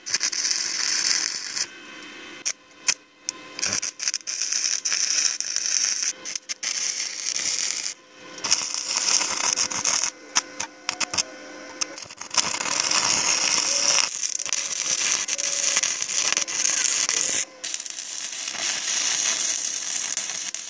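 Stick (arc) welding of steel: the electrode's arc crackles and sizzles in runs of a few seconds, breaking off and being struck again several times.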